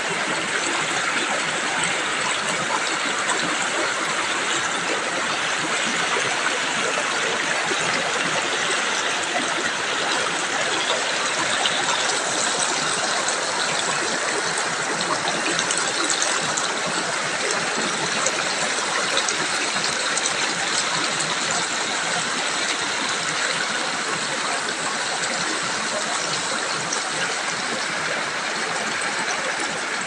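Fast river water rushing and splashing over and between boulders, right at the microphone: a steady, unbroken rushing.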